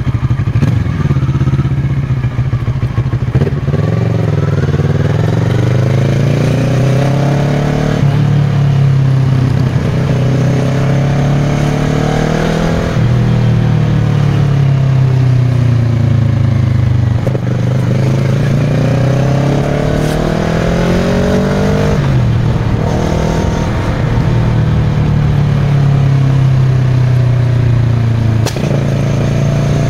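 Kawasaki Versys 650's parallel-twin engine through an aftermarket Giannelli exhaust, heard riding on the bike. It pulls up through the gears, its pitch climbing and dropping back several times, then settles to an even run.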